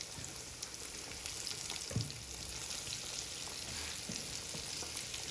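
Chicken legs coated in cornflour and rice flour deep-frying in hot oil: a steady sizzle with fine crackling pops. A soft low knock comes about two seconds in.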